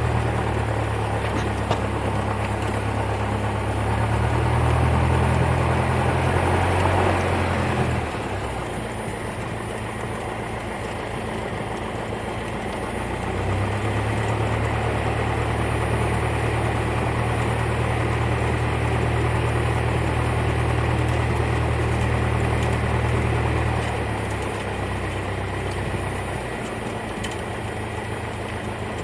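Cessna 172's piston engine running, heard inside the cabin as a steady low drone. It is louder for the first several seconds, drops back about eight seconds in, comes up again for about ten seconds in the middle, and eases off near the end as the power changes.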